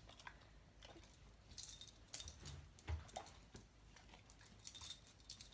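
Faint rustling, light knocks and brief jingles as a dog moves about and handles laundry at a washing machine.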